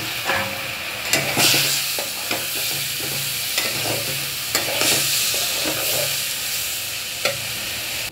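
Raw rice and lentils sizzling in hot spiced oil in a metal pot, stirred with a metal spatula that scrapes against the pot in repeated irregular strokes over a steady frying hiss. This is the rice being sautéed (koshano) before water goes in.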